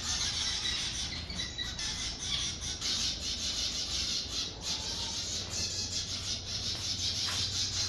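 Birds in an aviary chirping and calling as a dense, steady chatter of many short, high calls.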